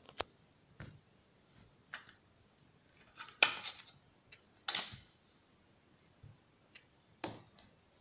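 Plastic phone case being handled: scattered clicks and snaps with some rubbing, loudest in a cluster about three and a half seconds in, as the phone is taken out of the two-piece shockproof case.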